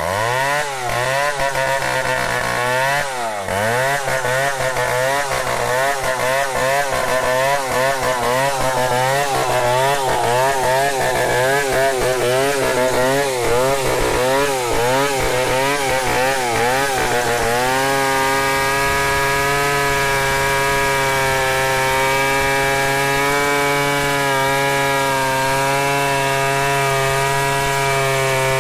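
Stihl 070 two-stroke chainsaw ripping a log lengthwise into planks. For roughly the first 17 seconds its engine speed wavers quickly up and down, then it settles into a steady high pitch as the cut goes on.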